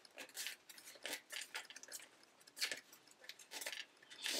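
Flat rattan reed rubbing and scraping against the basket's spokes as a weaver end is worked in and tucked behind them, heard as a string of faint, irregular rustles and ticks.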